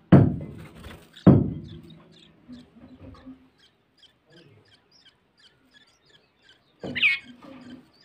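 Bulbul nestlings begging with a run of faint, short, high chirps, about two to three a second, as the red-whiskered bulbul parent arrives to feed them, with a louder bird call about 7 seconds in. Near the start there are two loud thumps with a ringing tail.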